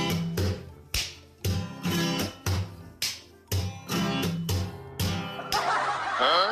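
Background music of plucked notes with sharp attacks, about two a second. Near the end it gives way to a short noisy stretch with a brief gliding sound.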